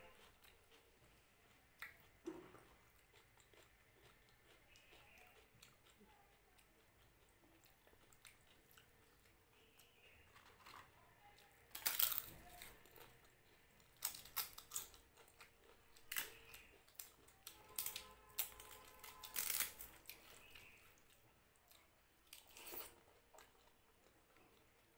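Crisp fried papad being bitten and chewed: quiet soft chewing at first, then loud sharp crunches from about halfway through, repeating every second or two for several seconds.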